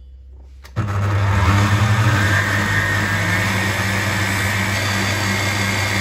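Kenwood stand mixer switched on about a second in, its motor running with a loud, steady hum as the balloon whisk beats eggs in the steel bowl, then cut off at the very end.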